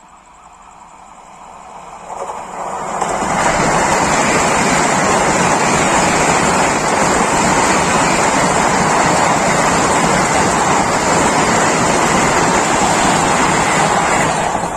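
Vande Bharat Express train rushing past at speed: a steady rushing noise that builds over about three seconds, holds loud, and drops off near the end.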